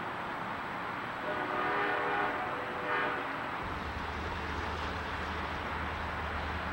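Diesel locomotive air horn sounding a blast of about a second and a half, then a short one, over general train noise. A steady low rumble starts a little past halfway.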